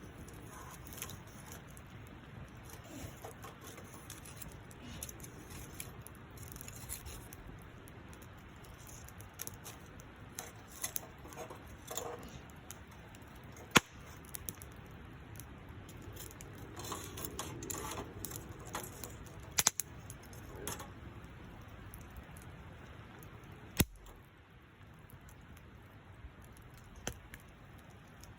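Wood campfire crackling with scattered small pops, and three sharp, louder pops spread across the stretch.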